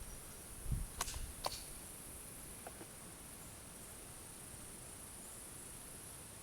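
A soft thump and two light clicks about a second in, a fainter click near three seconds, and over it all a steady high-pitched chirring of insects.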